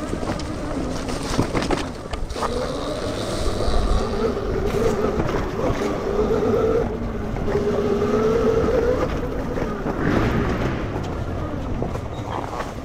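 Electric enduro motorcycle with a 12 kW MG160A motor running on a trail: a motor whine that slowly rises and falls in pitch as the speed changes, with scattered knocks from the bike over rough ground.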